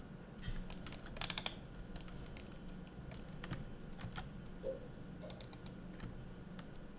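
Computer keyboard and mouse clicks as Blender shortcuts are pressed: scattered sharp taps, with quick runs of several keys about a second in and again near the end, over a low steady hum.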